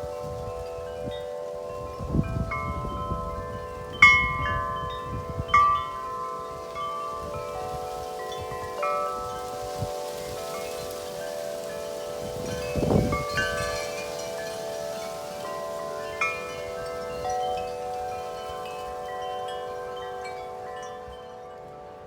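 Wind chimes ringing in gusty wind: many irregular strikes over a bed of several lower tones that ring on throughout. Wind buffets the microphone in gusts about two seconds in and again around the middle.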